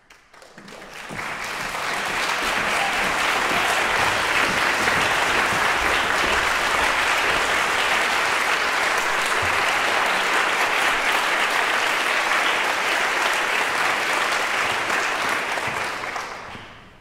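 Audience applauding in a concert hall, building up over the first two seconds, holding steady, then dying away near the end.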